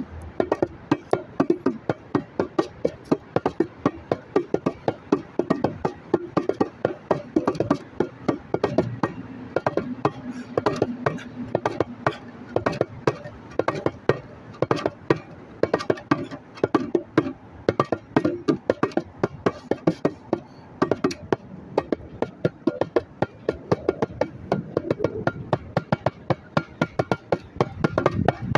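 Bongos played by hand in a fast, unbroken run of sharp strikes.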